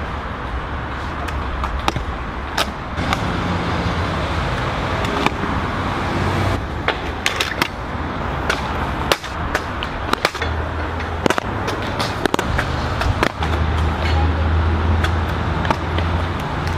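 Stunt scooter riding on a concrete skatepark: the wheels roll with a continuous rumble, broken by many sharp clacks and knocks as the scooter strikes obstacles and lands.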